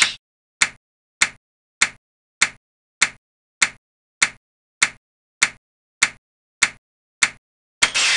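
Animation sound effect of a clock ticking: one sharp click about every 0.6 s, each marking one clock tick used by the running process. Near the end a hissing swoosh of about a second sounds as the process uses up its 15-tick limit and is swapped out of the running slot.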